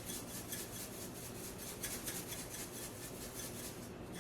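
Spoon scraping the bottom of a pan while stirring a ground-beef milk gravy, a quiet rhythmic rasping of about five strokes a second.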